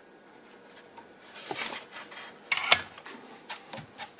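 Clicks, taps and a short clatter of small tools being handled on a workbench: the soldering iron set back in its stand and the freshly soldered stepper-motor wires unclipped from a helping-hands alligator clip. The loudest clatter comes a little past halfway, with a few lighter clicks after it.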